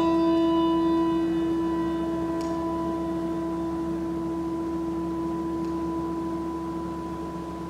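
A brass handbell, struck once, rings on as one clear tone that slowly fades, its higher overtones dying away within the first couple of seconds. It is the memorial toll rung after a departed member's name is read.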